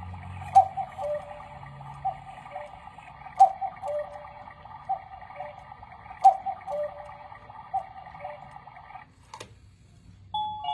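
Black Forest cuckoo clock calling its falling two-note "cuckoo" about once a second, with sharp clicks every three seconds or so. The calls stop about nine seconds in, a click follows as the little doors shut, and a tinkling music-box tune starts just before the end.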